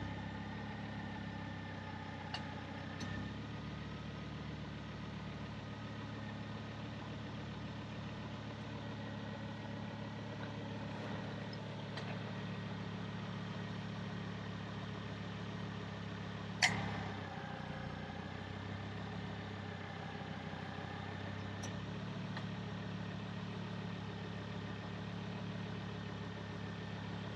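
Volvo C30 engine idling steadily while the steering is turned, with one sharp click about two-thirds of the way through. No metal-on-metal rub from the front brake backing plate is heard with the car unloaded.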